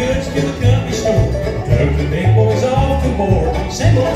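A bluegrass band playing live: banjo, mandolin, acoustic guitar and fiddle over plucked upright bass notes.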